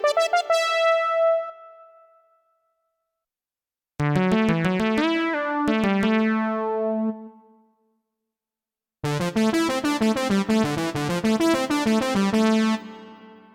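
Yamaha PSR-1100 arranger keyboard playing short demo phrases on a piano-like keyboard voice: quick struck notes ending in a chord that dies away, one phrase fading out near the start, then two more with silent gaps between them.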